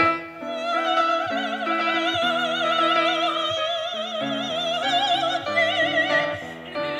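Operatic soprano singing with a regular vibrato, accompanied by a grand piano. The voice enters about half a second in and breaks briefly for a breath near the end.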